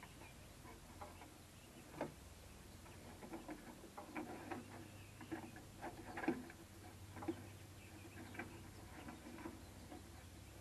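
Faint, irregular light clicks, taps and scrapes of a white plastic jug being handled, with a sharper click about two seconds in and the sharpest about six seconds in.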